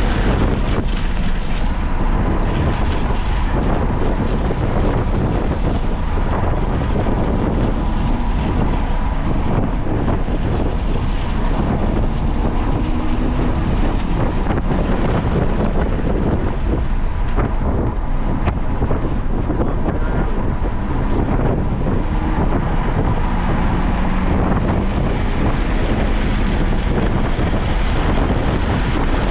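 Car driven at speed on a race circuit: heavy wind buffeting on the microphone over road noise, with a faint engine note that rises and falls.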